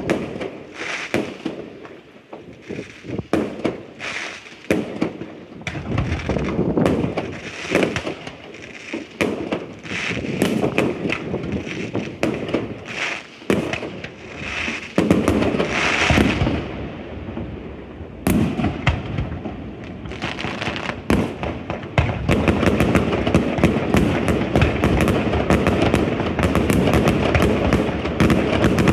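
Aerial fireworks shells bursting one after another, each a bang followed by crackle. After about twenty seconds the bursts come thick and fast in a dense, continuous barrage.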